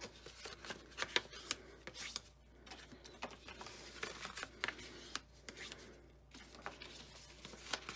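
Scored cardstock being folded along its score lines and pressed flat by hand and with a small plastic tool: paper rustling and rubbing, with many short, light clicks and taps.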